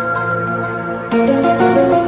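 A short music clip used as a sound effect: held, flute-like pitched notes over a steady low drone, the chord changing about a second in.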